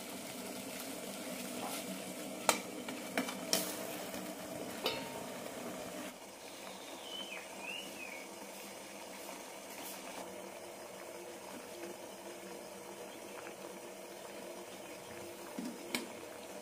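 Water boiling in a stainless steel pot, a steady bubbling hiss, with a few sharp metal clinks between about two and five seconds in. From about six seconds in a quieter steady hiss continues under the steamed puttu, with a couple of soft knocks near the end as a spoon stirs it.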